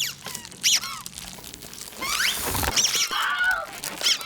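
Rubber chicken squeaky toys squealing, several short squeaks that rise and fall in pitch, with an airy hiss in the middle and a lower wavering squawk near the end.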